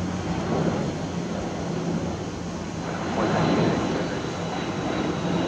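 Four-engined Qantas Boeing 747-400 jetliner passing overhead on approach: a steady jet rumble, with a faint high whine coming in about halfway through.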